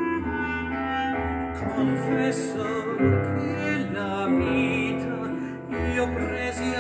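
Instrumental interlude of a classical-style Italian song: held wind-instrument notes changing every second or so over a sustained low bass, with no singing.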